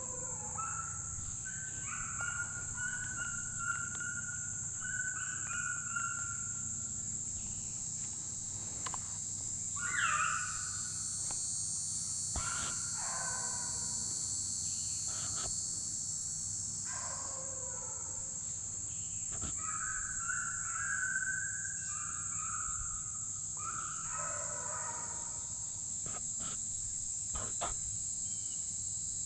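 Steady, high-pitched insect chorus, with several runs of short animal calls breaking in over it, the loudest a falling call about ten seconds in.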